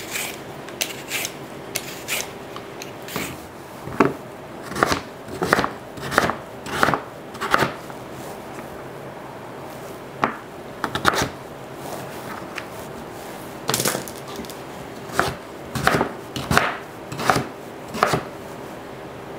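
Chef's knife slicing peeled sweet potatoes into fries on a plastic cutting board: a series of sharp knife strokes hitting the board, in runs of several cuts with short pauses between. The first few seconds hold quieter strokes from a vegetable peeler stripping the skin.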